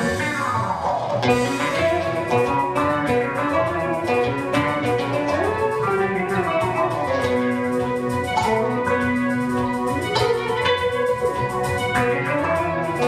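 Band music: a plucked-string melody over drums, with some sliding and held notes.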